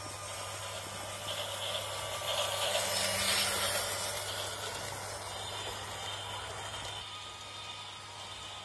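Toy train set's model diesel locomotive and wagons running on plastic track: a steady motor hum with wheel rattle and hiss that grows louder as the train passes close, peaking about three seconds in, then fades.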